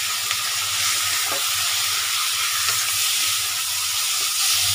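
Pork cubes sizzling as they fry in an aluminium wok, a steady hiss, with a spatula stirring them and a few light clicks of it against the pan.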